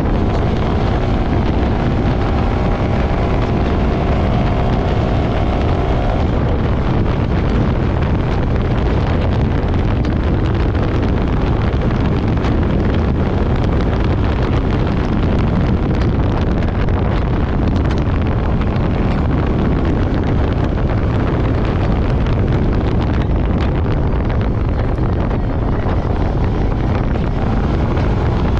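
ATV engine running steadily under way on a sandy track, largely covered by heavy wind rumble on the microphone. A faint engine note shows through during the first several seconds and again near the end.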